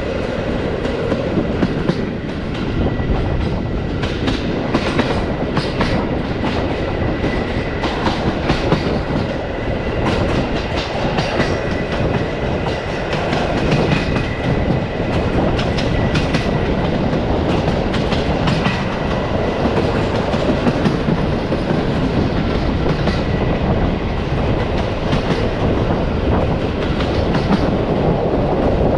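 Passenger train coaches rolling along the track, heard from an open coach window: a steady rumble of the wheels with irregular clicks and knocks over rail joints, and a faint steady high whine.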